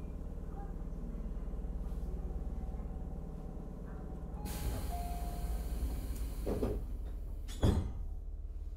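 Inside a Tobu electric commuter train standing at a station: a steady low hum, then a hiss of air from about four and a half seconds in and a loud thump near the end as the sliding doors shut.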